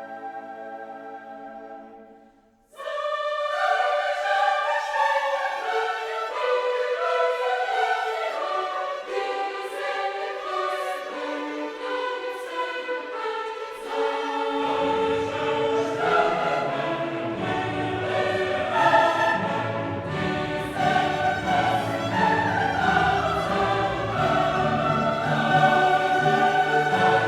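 Background music: a held ambient chord fades out, then choral music with orchestra starts suddenly about three seconds in. Lower parts join about halfway through.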